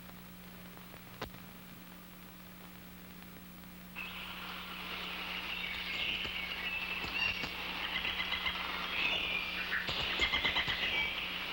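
Many short, high chirps like birds chirping, starting about four seconds in and growing busier, over a steady low electrical hum, with a single click about a second in.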